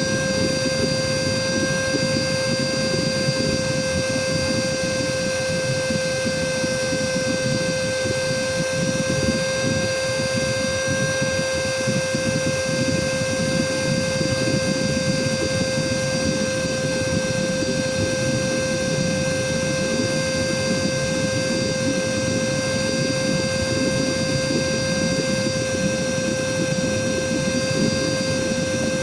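Cordless vacuum cleaner motor running steadily, a constant high whine over a rush of air. It is well into a battery runtime test, its battery running down and its power reduced.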